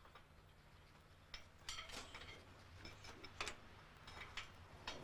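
Faint, irregular metal clicks and clinks from a hand working a latch on rusty iron cage bars, with a small cluster about two seconds in and the sharpest click about three and a half seconds in.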